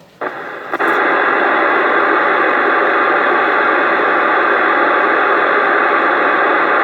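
CB radio hiss and static from the receiver's speaker: a steady rush of noise with no voice. It comes on just after the last speaker drops off and steps louder about a second in, as another station's transmission comes through.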